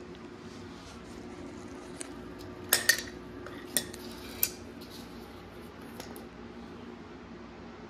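Metal hand tools (an adjustable wrench and filter pliers) clinking as they are handled on a concrete floor: a few sharp clinks, the loudest pair close together about three seconds in, then two more over the next second and a half. A faint steady hum underneath.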